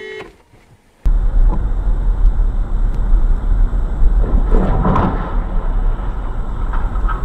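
A brief near-silent gap, then from about a second in a steady low rumble of road and engine noise inside a moving car, with a louder burst of noise about five seconds in.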